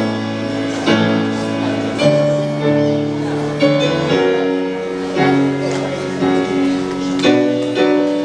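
Piano playing a slow, tender introduction to a Greek song, new chords struck every second or so and left to ring.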